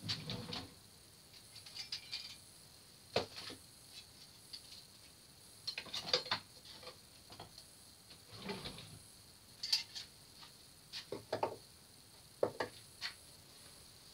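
Hands rummaging for tools in a wooden workbench drawer: irregular clicks, clinks and knocks of tools and wood, in short clusters every second or two.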